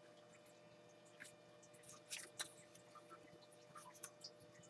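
Near silence with a few faint, short clicks and rustles of paper being moved and a marker being handled as a fresh sheet is laid down.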